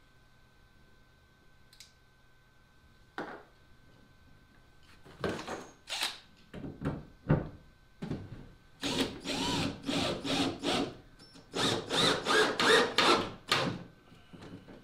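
Cordless drill driving wood screws into an oak seat riser in several short runs with pauses between. The runs start about five seconds in, and the longest, loudest ones come near the end.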